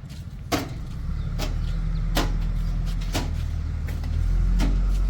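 Diesel engine of a working machine droning, rising in revs about a second in and loudest near the end before easing off, with sharp knocks about once a second.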